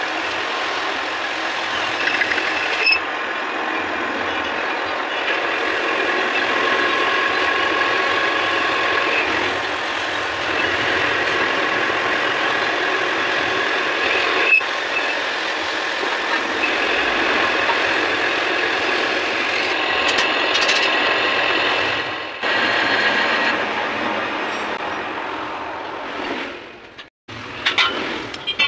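Metal lathe running while a cutting tool turns down a rusty steel bar held between chuck and tailstock centre, a steady machining noise with thin high ringing tones from the cut coming and going. The sound cuts off near the end, followed by a few small clicks.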